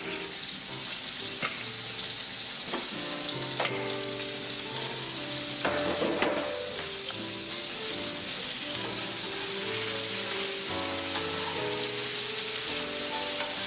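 Potatoes frying in a pan of hot oil and rendered chicken fat, a steady sizzle, with a few brief clicks from the pan or utensil, the busiest just before the middle.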